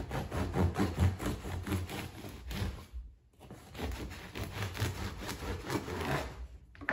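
A bread knife sawing back and forth through the crust of a homemade sourdough loaf on a wooden cutting board: quick, repeated scraping strokes in two bouts, with a short pause about three seconds in.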